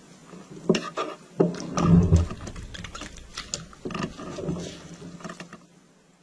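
Rubber-gloved hand squashing and kneading lumps of microwaved jello on sheets of paper: irregular squelches, crinkles and taps, loudest about two seconds in and fading near the end.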